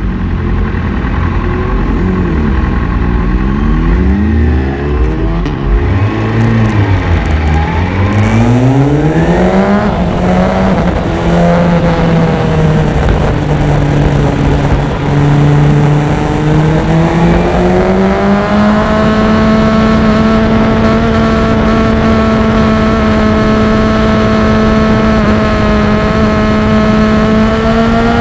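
Sport motorcycle engine pulling away hard through several quick upshifts: its pitch climbs and drops at each gear change in the first ten seconds. After that it runs at a steady pitch for most of the rest, with a rise about eighteen seconds in and again near the end.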